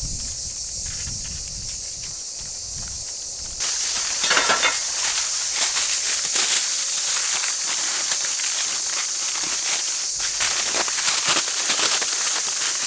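Aluminium foil being crumpled and pressed down around a clay baking dish: a dense, loud crinkling and crackling that starts about a third of the way in and runs on. Before it, a steady high insect drone.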